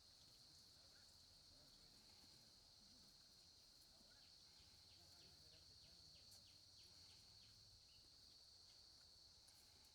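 Near silence, with a faint steady high insect drone and a quick run of short chirps about halfway through.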